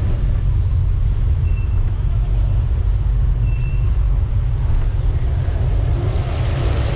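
Steady low rumble of wind on the camera microphone of a moving motorcycle, with the bike's running and road noise underneath.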